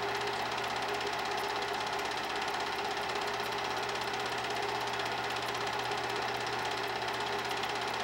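8 mm movie projector running: a steady, fast, even clatter of the film-advance mechanism over a constant motor hum.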